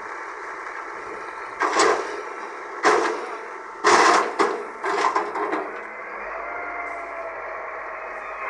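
Heavy earthmoving machine's engine running steadily, with four or five loud metallic bangs between about two and five and a half seconds in, followed by a wavering whine from about six seconds in.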